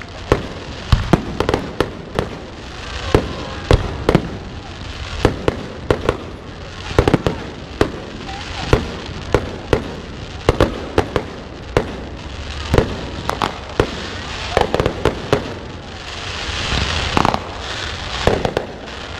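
Fireworks display: aerial shells bursting in a rapid, irregular run of sharp bangs, two or three a second, with a stretch of hiss about three-quarters of the way through.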